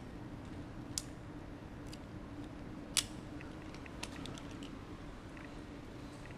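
Sharp metallic clicks of rope-access hardware, a rope descender and carabiners, being handled: a few scattered clicks, the loudest about three seconds in, over a steady low hum.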